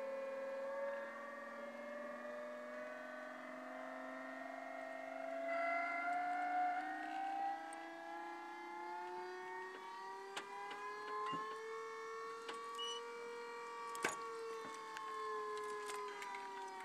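Bale wagon's lift mechanism whining steadily as its arms raise a round bale, the pitch slowly climbing and then dropping near the end. A few clicks and one sharp clank late on.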